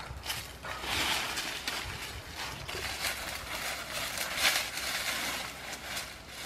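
Dry leaves and leafy branches rustling and crackling unevenly as they are pulled and broken off by hand in dry forest undergrowth.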